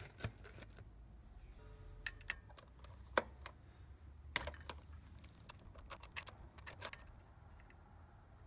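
Scattered sharp metal clicks and taps from a ratchet and 10mm socket working the final-drive oil drain bolt of a 1985 Honda Elite 250 scooter, loosening it to drain the gear oil. The loudest click comes about three seconds in, and a quicker run of clicks follows between about five and seven seconds.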